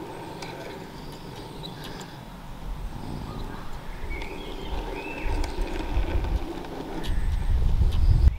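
4mm-scale model goods wagons pushed by hand along hand-built nickel silver track through a turnout: a soft steady rolling noise with faint clicks. Birds chirp now and then, and wind rumbles on the microphone, heavier in the second half.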